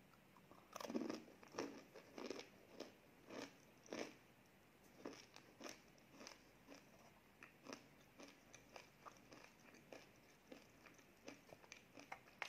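Close crunchy biting and chewing of a crumbly cookie. Loud, sharp crunches come in the first few seconds, then softer, sparser chewing crackles follow.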